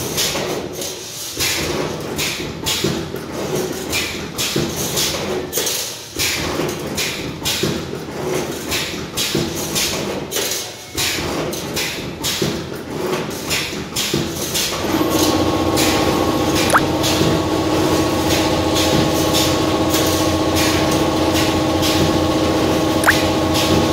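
2D CNC wire bending machine running, its wire feed and bending head making rapid, irregular clicks and clacks as steel wire is fed and bent. About fifteen seconds in, a steady hum with several tones sets in and carries on.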